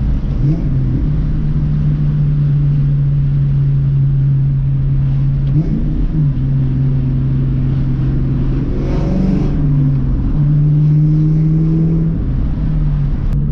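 Ford Mustang V8 exhaust droning steadily while the car is driven, heard from inside the car. The drone holds one pitch for seconds at a time and shifts pitch a few times with brief rises and falls in revs.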